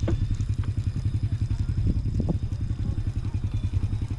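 A small engine running steadily at low revs, with an even pulse of about eight beats a second.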